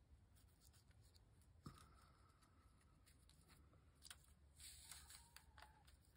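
Faint rustling and crinkling of paper and card being handled, with scattered soft clicks and a small tap about one and a half seconds in.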